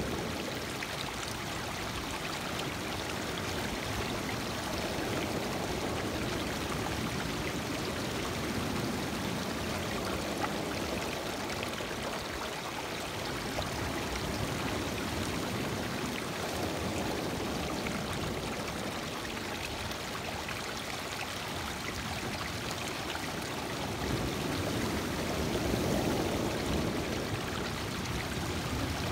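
Lake water washing over and trickling between the stones of a rocky shoreline, a steady rush of surf that swells slightly louder near the end.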